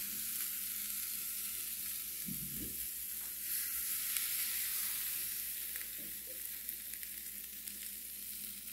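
Spinach and onion sizzling in a hot frying pan, a steady hiss. About halfway through, beaten eggs are poured over the greens and the sizzle swells.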